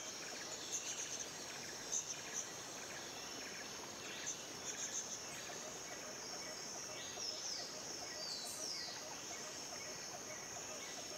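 Faint insect chirping and trilling over a steady high hiss, with clusters of quick chirps and a few short falling whistles about seven to nine seconds in.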